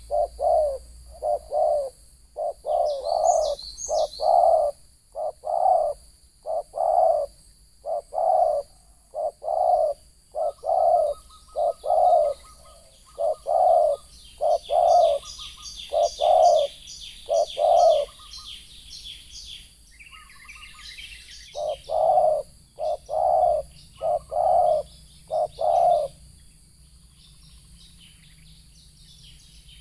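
Spotted doves cooing: a long run of low coo notes, about one to two a second, that stops near the end. A smaller bird chirps higher and fainter at times.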